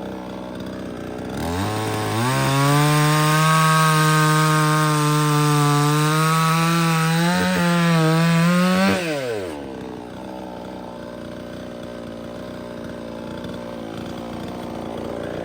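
A 58cc two-stroke chainsaw idling, then revved to full throttle about a second and a half in and cutting through a large red oak log under heavy pressure for about seven seconds, before dropping back to idle.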